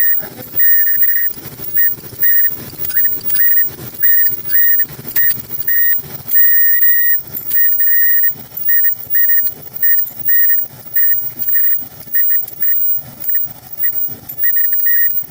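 Clothes dryer drum running with a high-pitched squeal that repeats about three times every two seconds, one longer squeal near the middle, over a low rumble. The owner puts the squeal down to the drum's front sliders.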